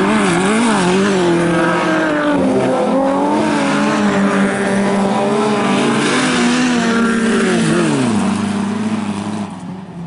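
Several bilcross race cars, VW Beetles among them, with their engines revving hard through a dirt corner, the overlapping engine notes rising and falling in pitch with throttle and gear changes. About 8 s in, one note drops away and the sound fades as the cars pull off down the track.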